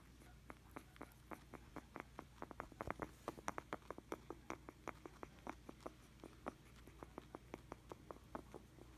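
Guinea pig making quick, irregular popping clicks, several a second, the busiest and loudest run about three to four seconds in. The owner calls it a mix of mini-fireworks and snuffling, and worries it may be a sign that she is sick.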